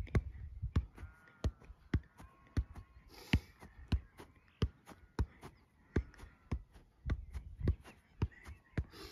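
A football being juggled in keepy-ups, kicked over and over with a short dull thump of foot on ball about twice a second.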